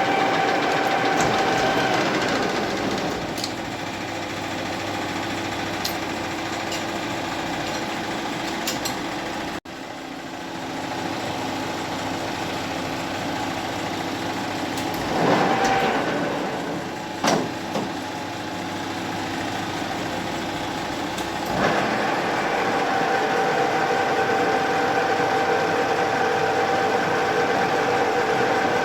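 Metal lathe running steadily in a machine shop, its hum shifting in pitch at a few abrupt changes, with a brief swell and sharp clicks around the middle.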